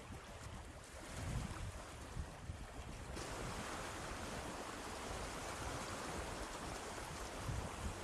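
Wind buffeting the microphone in low gusts, over a steady rushing noise that gets louder suddenly about three seconds in.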